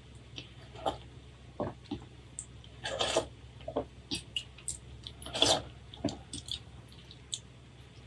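Close-miked eating sounds: a metal spoon clicking against a glass bowl and dipping into broth, with two louder wet slurps about three and five and a half seconds in.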